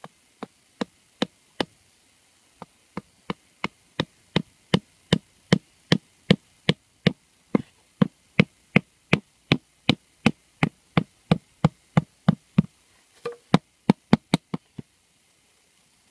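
Sharp, evenly spaced knocks or taps, about two and a half a second, with a short break about two seconds in and a quicker run of five just before they stop near the end.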